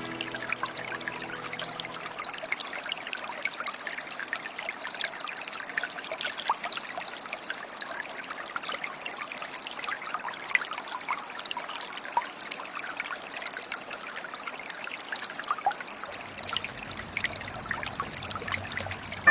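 Running water trickling and splashing steadily, a dense patter of small droplet sounds.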